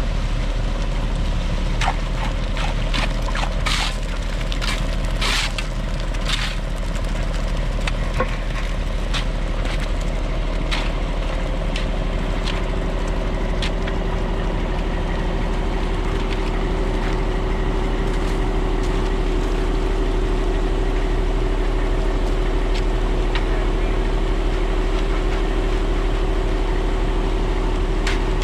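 An engine running steadily, with scattered knocks and clatter in the first half; its steady hum grows stronger about halfway through.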